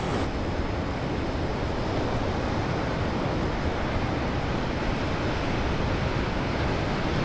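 Ocean surf breaking: a steady, even rush of wave noise with no let-up. The highest hiss drops away just after the start.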